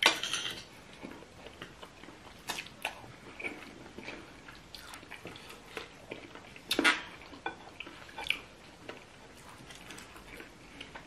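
Eating sounds: chewing and biting on chicken feet, with a fork clinking and scraping on a plate. Short clicks and smacks come irregularly, the loudest about seven seconds in.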